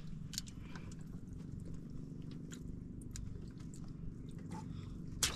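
Scattered small clicks and knocks as a caught fish and handline are handled aboard a wooden outrigger fishing boat, over a steady low hum, with a sharper clatter of clicks near the end.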